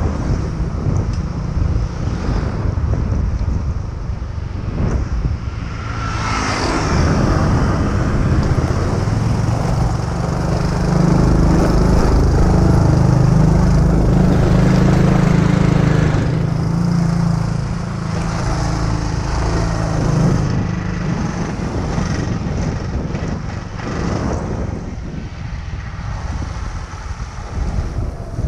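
Motor scooter engine running on the move, with rushing wind on the microphone. It grows louder for a stretch in the middle.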